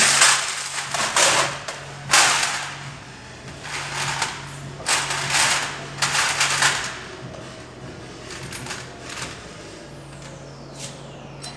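Hands rummaging through a tray of bolts and small metal parts, giving several rattling, clinking bursts in the first seven seconds, then only a few faint clicks.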